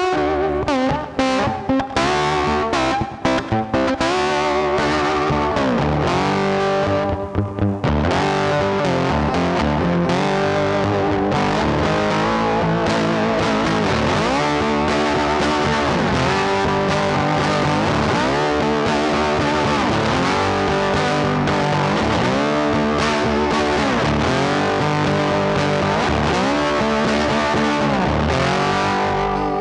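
Background music, playing steadily, with a brief break about seven seconds in.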